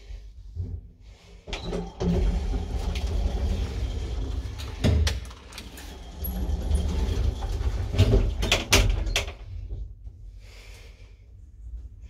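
1960s Del Bo traction elevator running with a low rumble, broken by sharp mechanical knocks and clatter from its doors: one loud knock about five seconds in and a burst of clicks and bangs around eight to nine seconds in.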